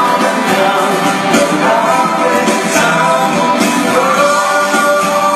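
Loud music with a voice singing over it, the sung notes held long.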